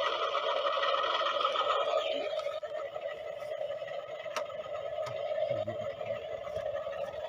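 A small electric motor in a toy construction vehicle whining steadily, its higher overtones falling away after about two and a half seconds, with a sharp click a little past the middle.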